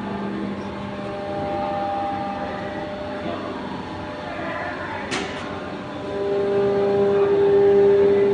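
Shop machinery running with a steady hum. Its tone grows louder from about six seconds in, and there is one sharp metallic knock about five seconds in.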